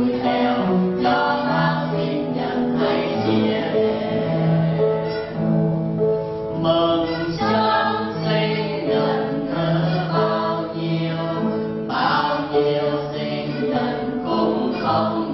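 A small mixed group of men and women singing a birthday song together, accompanied by upright piano and acoustic guitar.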